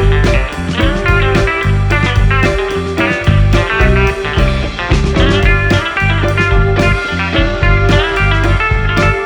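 Background music: an instrumental track led by guitar, with a steady beat.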